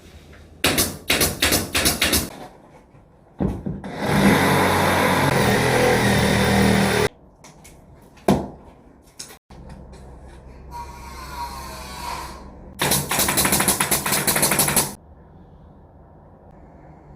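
Power tools on a drywall job. There are two bursts of rapid sharp rattling, about a second and a half each, early and near the end, and between them a steady harsh noise lasting about three seconds.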